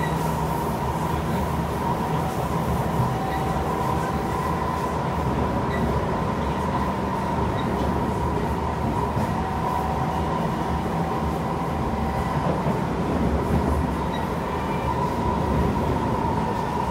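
Interior running noise of a Kawasaki C151 electric multiple unit travelling along the track: a steady rumble with a steady high whine throughout.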